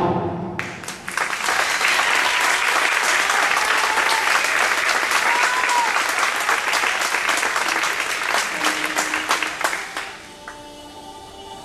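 Audience applauding, a dense clatter of many hands that starts just after the music breaks off and dies away about ten seconds in. Soft orchestral music then comes back in.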